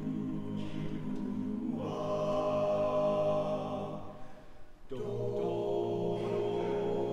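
Male a cappella group singing long held chords in close harmony. The chord changes about two seconds in, and after a short break around four and a half seconds a new chord begins.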